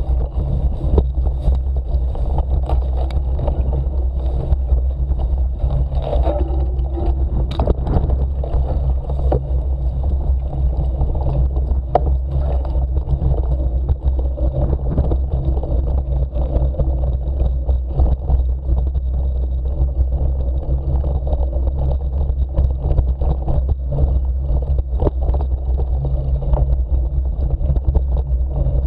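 Wind rumble on a bike-mounted camera's microphone while riding a mountain bike at speed over a bumpy grass and dirt track, with frequent small clicks and rattles from the bike jolting over the rough ground.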